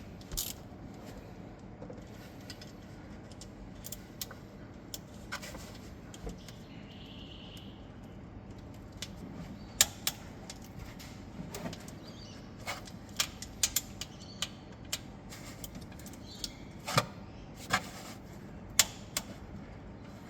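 Irregular sharp metallic clicks and taps of a 10 mm wrench working the starter motor's mounting bolts loose, with the louder ones clustered in the second half, over a steady low hiss.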